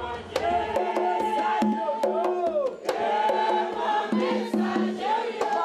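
Congregation of many voices singing together, holding long notes that step from one to the next.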